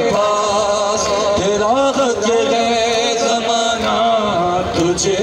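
Noha recitation: a chanted Shia lament carried in a drawn-out melodic line of voice.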